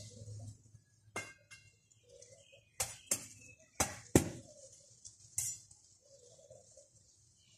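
Clay bricks knocking and clinking against each other as they are picked from a stack and set down, about six sharp knocks over a few seconds.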